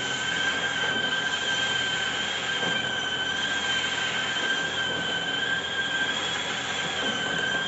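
Factory machinery running with a steady, high-pitched squeal that wavers slightly in pitch, over a continuous mechanical hiss.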